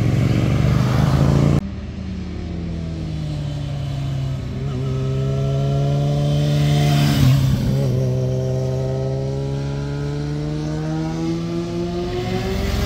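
Motorcycles riding through a hairpin bend, one engine after another. About seven seconds in, one bike's engine passes close by and its pitch dips as it goes. Then another motorcycle's engine rises steadily in pitch as it accelerates up toward the camera.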